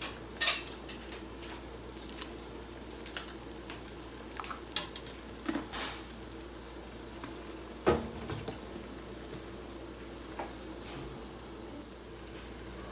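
Large stainless steel stockpot of water at a rolling boil, bubbling steadily. A few light clicks and knocks of metal are heard, the loudest about eight seconds in.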